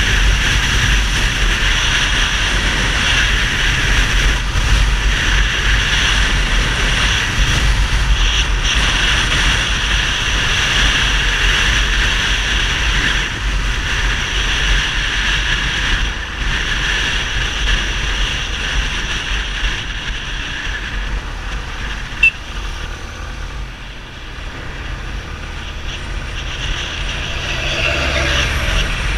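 Yamaha XTZ 250 Ténéré's single-cylinder engine running through a Roncar 2Way aftermarket exhaust, loud and steady with a strong low rumble. It eases off a little after about 21 seconds, with one short sharp click, then builds again near the end.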